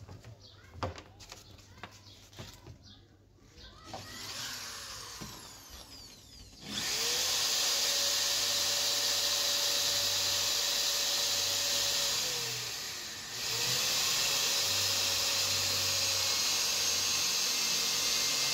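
Handheld electric power tool running in two long bursts of about five to six seconds each, its motor spinning up at the start and winding down at the end of each. A few light knocks come before the first run.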